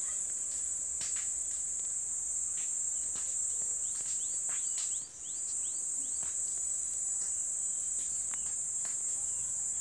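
Insects chirring steadily at a high pitch, breaking off briefly about five seconds in, with a few faint scattered clicks.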